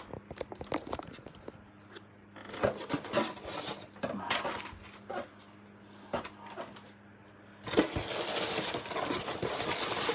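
A cardboard shipping box being opened and handled: scattered clicks, knocks and scrapes, then a steady stretch of rustling packaging from about eight seconds in. A faint low hum sits underneath.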